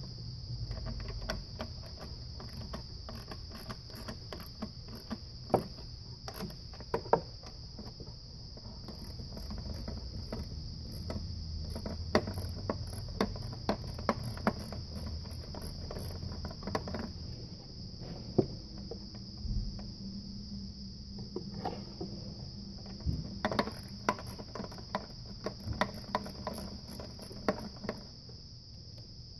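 Hand tool clicking and knocking against metal in irregular runs while the engine's thermostat housing bolts are worked by hand. A steady high-pitched chirring runs underneath.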